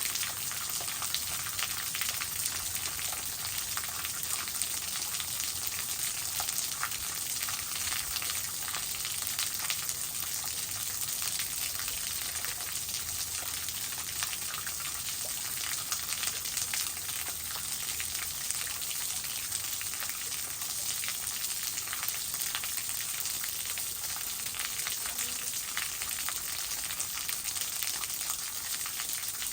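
Waterfall splashing steadily: an even, unbroken rush of falling water, bright and hissy, with no pauses or changes.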